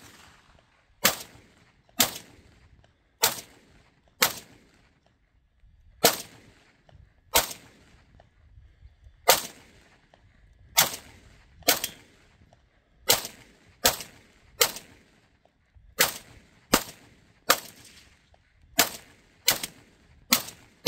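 Kalashnikov USA KR-103 AK rifle in 7.62×39 firing steady, aimed semi-automatic shots, about eighteen in all at roughly one a second, each sharp report trailing off briefly. The shots come a little quicker, about two every one and a half seconds, near the end.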